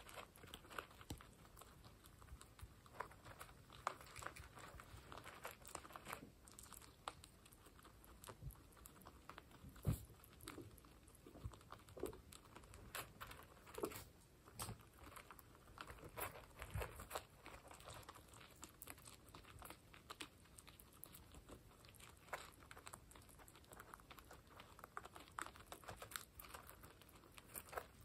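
Guinea pigs crunching and chewing dry pellets from a bowl: many quick, quiet crunches in an irregular stream.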